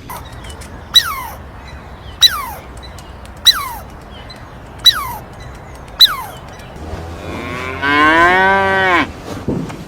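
Five short, sharp calls falling steeply in pitch, about one every 1.2 seconds, then a cow mooing once near the end, one long call that rises and falls in pitch.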